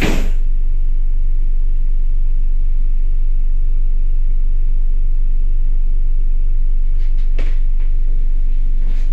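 ER2 electric train running, a loud steady low rumble heard from inside the carriage, with a few faint clicks near the end.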